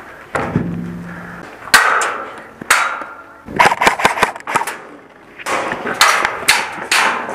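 Airsoft gunfire in an exchange at close range: sharp cracks and smacks, single shots about two and three seconds in, then quick volleys, some with a short metallic ring as BBs strike the steel containers.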